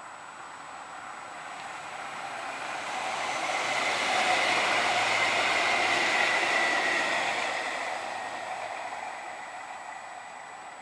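Electric tram, a CAF Urbos 3, passing by on its track: the sound swells as it approaches, is loudest as it goes past with a steady high whine over the running noise of wheels on rail, then fades as it moves away.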